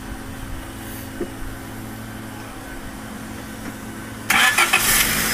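Honda four-cylinder engine being started about four seconds in, cranking and catching with a sudden jump in loudness, then running at idle.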